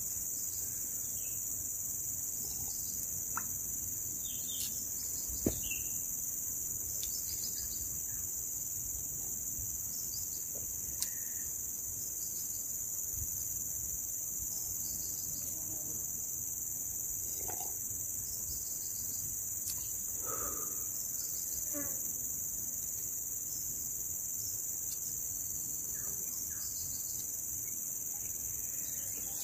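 A steady, high-pitched chorus of jungle insects, with a couple of faint clicks.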